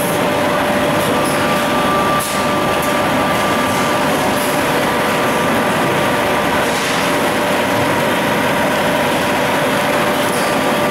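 Multivac R330 thermoforming packaging line running: a steady mechanical noise with a steady whine in it, and a brief knock about two seconds in.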